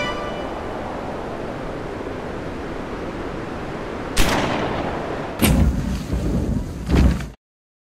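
A steady rushing noise, then three sharp explosion-like blasts a second or so apart, each with a trailing rumble: blast sound effects laid over a fire-and-sparks visual effect. The sound then cuts off dead.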